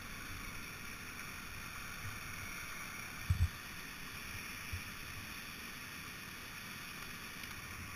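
Steady rush of white water pouring over the Low Force falls, with two short low thuds about three and a half seconds and near five seconds in.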